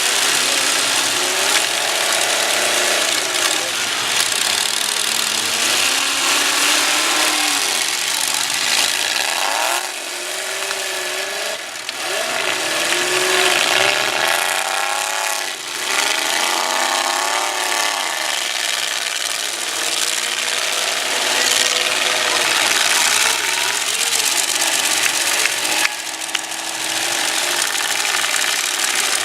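Several demolition derby trucks' engines revving hard at once, their pitch rising and falling over a constant loud, rough din.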